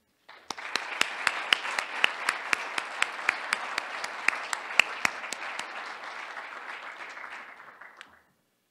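Audience applauding, with sharp single claps standing out close to the microphone; the applause tapers off and stops near the end.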